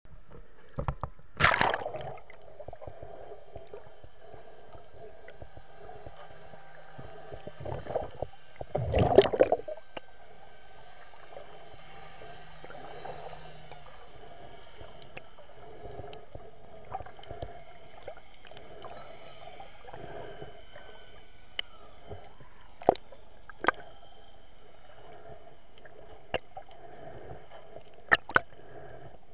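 Muffled underwater sound heard through an action camera's waterproof housing. There are two loud splashing, bubbling rushes, one about a second and a half in and a longer one around nine seconds in, as the camera goes under. After that comes a steady dull hum with scattered sharp clicks.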